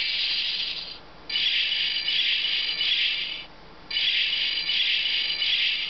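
Bandai Power Rangers Thunder Staff toy playing its electronic sound effect from a small built-in speaker: a harsh, hissing high noise. One burst ends about a second in, then two more follow, each about two seconds long with a short break between, as its sound button is pressed again.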